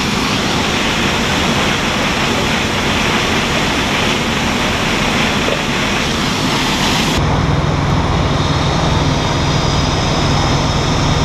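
Water rushing from fire engine hose discharges and an aerial ladder stream, a loud steady hiss over the running pumps. About seven seconds in it cuts to the low, steady hum of fire engines idling.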